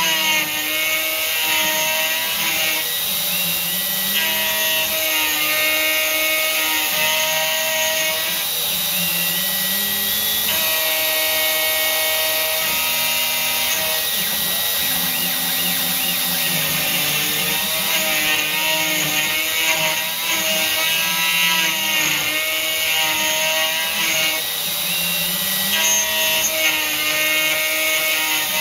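CNC gantry router's spindle cutting a pocket into an aluminium plate, with the machine's motor whine stepping to new pitches every second or two as the cutter moves along its path.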